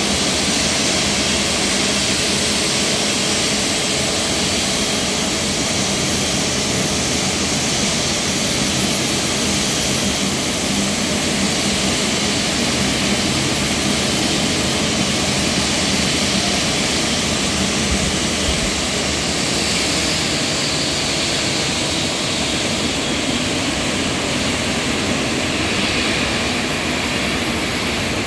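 Steady jet noise on an airport apron: an even rush with a low hum under it, holding level without a break.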